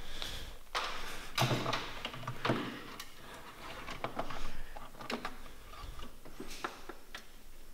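Ignition leads and distributor parts being handled by hand in an engine bay while a new electronic distributor is fitted: scattered sharp clicks and small knocks with brief scraping and rustling, busiest a little after the first second.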